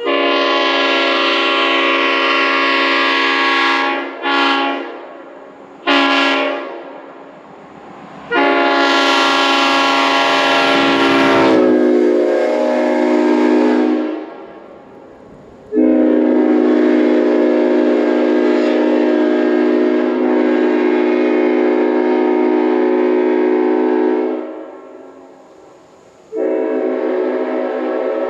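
Leslie S5T five-chime train horn from 1953, ex-C&NW E8A 518, blowing its chord: a long blast, two short toots, then two more long blasts, the second about nine seconds long, with another blast starting near the end. The chord sags in pitch as one blast cuts off.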